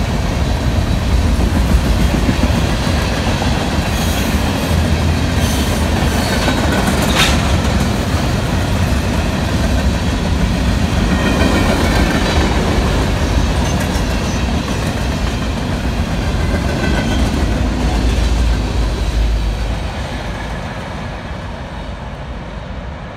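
Freight train cars, tank cars and covered hoppers, rolling past close by with a continuous rumble, clickety-clack of wheels and a faint high wheel squeal. There is a sharp clank about seven seconds in. Near the end the sound fades as the last car passes and moves away.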